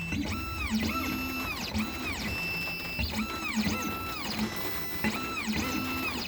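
Computerized key cutting machine decoding a key: its stepper motors make short whines, each rising to a held pitch and then dropping away, about twice a second, as the probe steps along the blade.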